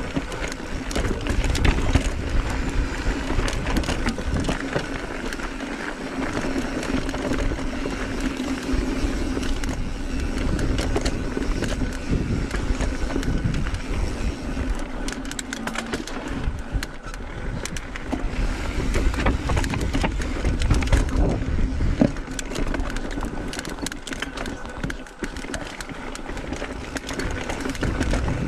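Mountain bike ridden over a rocky dirt trail: steady tyre noise on dirt and rock with frequent knocks and rattles from the bike over bumps, and wind rumbling on the microphone.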